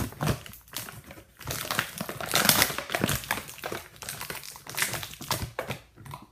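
Plastic packaging crinkling and rustling in bursts as a small blind-bag toy pack is handled and opened.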